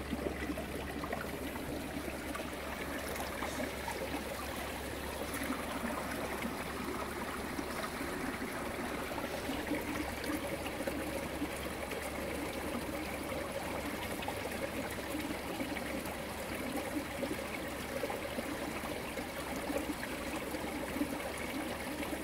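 A stream flowing and trickling, a steady water sound with no change through the stretch.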